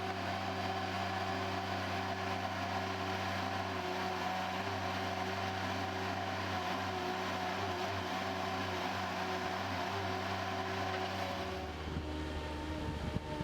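Engine of a compact loader running steadily at constant speed, with a change in its note about twelve seconds in.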